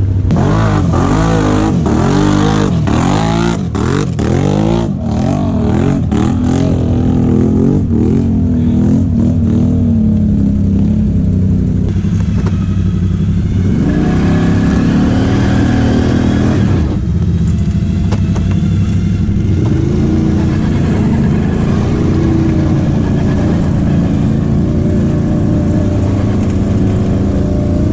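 ATV engine revving hard under load while it churns through deep mud. The revs rise and fall repeatedly over the first ten seconds, with several sharp knocks in that stretch, and then the engine settles into a steadier, labouring run with smaller swings in pitch.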